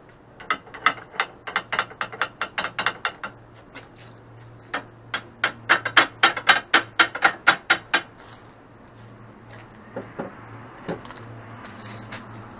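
Hammer tapping square steel frame tubing into line on a welding table: a quick run of light blows, then a louder run of about five blows a second from about five to eight seconds in, then a couple of single knocks.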